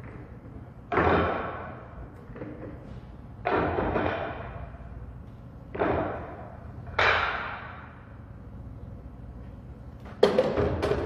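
Pool balls clattering against one another as they are pulled from the pockets and set on the table for a re-rack. There are six clacking bursts a second or two apart, each ringing briefly, with two sharp knocks close together near the end.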